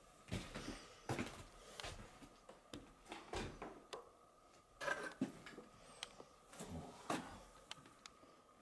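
Footsteps on a debris-strewn, broken wooden floor: irregular knocks, crunches and scrapes, the loudest about a second in, around five seconds and around seven seconds.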